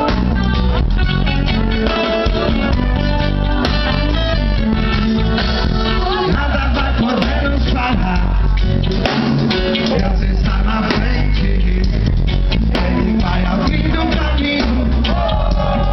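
Live reggae band playing loud and steady: electric guitars, bass and drum kit, with a lead singer's voice over the band.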